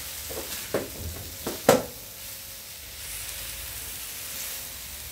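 Sliced mushrooms sizzling in a nonstick wok while a spatula stirs them. A few short scrapes and knocks of the spatula against the pan come in the first two seconds, the loudest a little under two seconds in, then steady sizzling.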